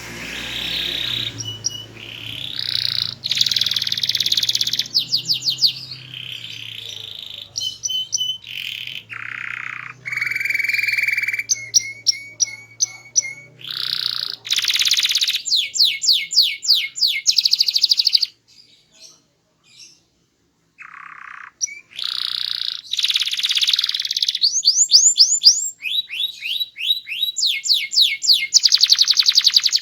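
A domestic canary in full song, loud and varied: rolling phrases, rapid trills of repeated notes and rising whistled notes follow one another, with a short pause about two-thirds of the way through.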